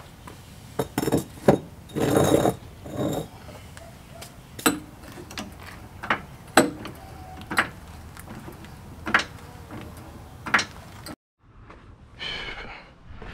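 Work noises around a car raised on a floor jack: about a dozen sharp knocks and clinks at uneven intervals, some with a metallic ring, with a scuffing rustle about two seconds in.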